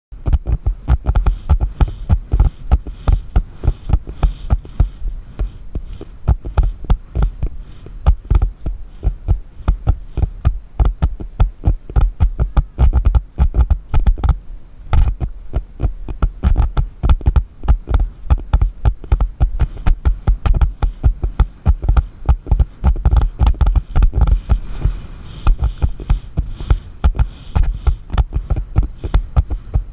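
Horse cantering on sand footing: a steady rhythm of low, dull hoofbeat thumps, with the jolts of the ride, heard through a rider's helmet camera.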